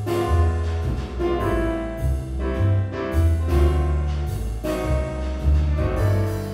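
Instrumental background music with bass notes and chords changing every second or so.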